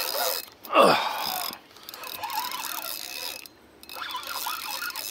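Fishing reel ratcheting as line is worked on a bent rod with a fish on. About a second in comes a loud, brief sound that falls sharply in pitch.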